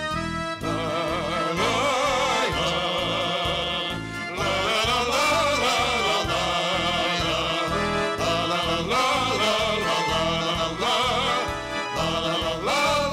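Folk ensemble led by accordion playing an instrumental break between verses of a song, over a steady beat.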